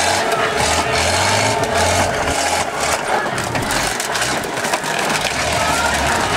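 Vehicle engine running loudly amid a dense din, with scattered knocks and a stop-start low rumble.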